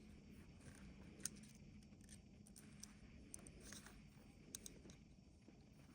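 Near silence with a few faint, short clicks and ticks of small parts being handled, in keeping with fiddling a wire into a screw terminal.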